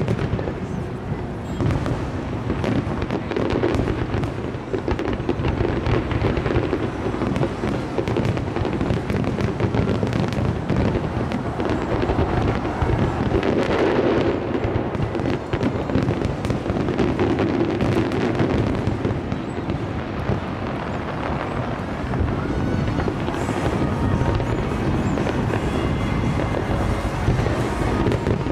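Aerial fireworks display: a continuous barrage of shells bursting, with many rapid bangs and crackles overlapping without a pause.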